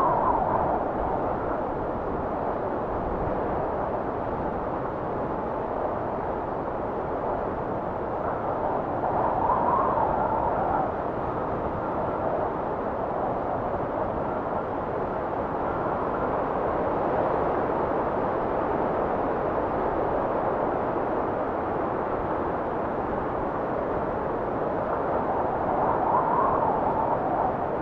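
Wind blowing steadily, an even rushing hiss that swells in gusts about ten seconds in and again near the end.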